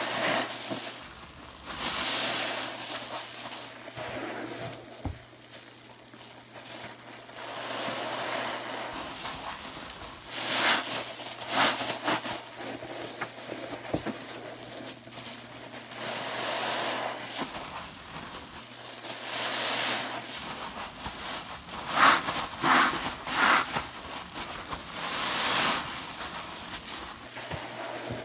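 A soap-lathered sponge squeezed and kneaded by hand in soapy water, making wet squelching sounds that come in repeated surges a few seconds apart, with a run of quick squeezes about three-quarters of the way through.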